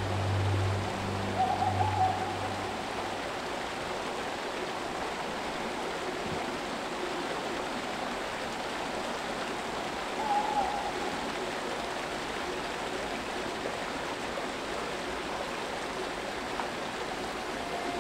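Stream water running steadily among rocks, with a short pitched animal call twice, about a second and a half in and again about ten seconds in.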